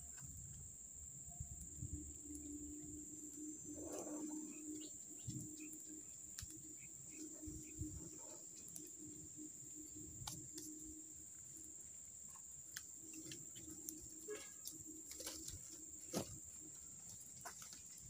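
Faint, steady high-pitched drone of forest insects, with scattered light clicks and snaps and a low wavering hum that comes and goes.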